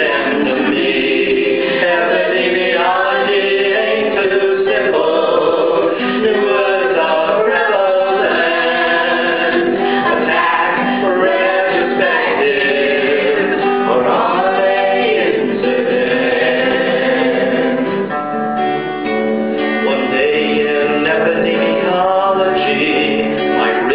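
Live song: several voices singing together, accompanied by two strummed acoustic guitars.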